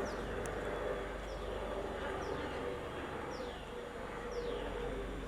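A bird's short, high call falling in pitch, repeated about once a second over steady background noise.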